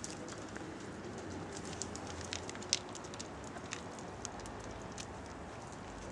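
Basset hound claws ticking lightly and irregularly on concrete paving over a steady outdoor hiss.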